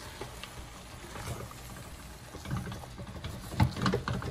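A spoon stirring callaloo in a cooking pot: scattered scraping and clacking against the pot, busier in the second half, with a sharp knock about three and a half seconds in.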